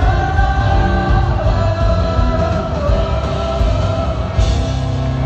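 Live rock band with a lead singer playing through an arena PA, heard loud from the audience. Near the end the singing stops and the band holds one steady chord.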